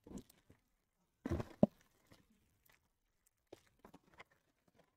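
Foil-wrapped trading-card packs being handled and stacked on a table: scattered crinkles and light taps, with a louder thump about a second and a half in as packs are set down.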